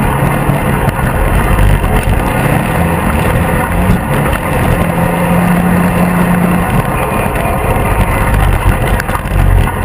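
Polaris RZR 800 side-by-side under way on a dirt track, its twin-cylinder engine running loud and continuous over the rumble of the ride, the engine note holding steady for a couple of seconds around the middle.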